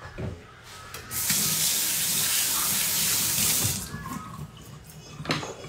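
Kitchen tap running into a stainless-steel sink for about two and a half seconds, starting about a second in, while hands are rinsed under it. A single sharp knock near the end.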